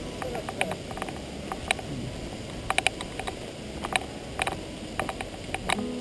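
Loose gravel crunching and clicking as the stony track is travelled over: irregular sharp ticks, some in quick clusters, over a low steady rumble.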